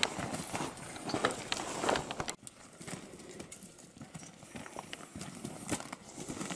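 Footsteps of several hikers crunching over loose rock and gravel in an irregular walking rhythm. They are close and louder for about two seconds, then drop suddenly to fainter steps.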